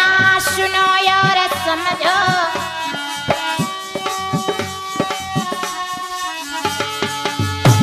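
Indian folk music from a sohar song: a dholak drum keeps the rhythm with regular strokes under a held, sustained melody from the accompanying instruments.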